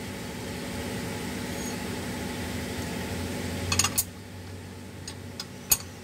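A steady low machine hum cuts off about four seconds in. A few sharp metal clinks follow, from a combination wrench being picked up and handled.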